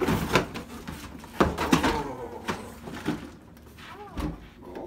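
Large cardboard packing box being lifted and slid off a plastic toy playhouse: a run of cardboard scrapes and knocks.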